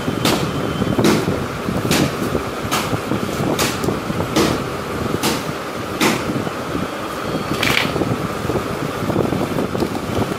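Sharp clicks and taps, about one a second at irregular intervals, from small tools and plastic parts being handled as the LCD screen's cable connector is unplugged from an opened HP laptop, over a steady fan-like noise.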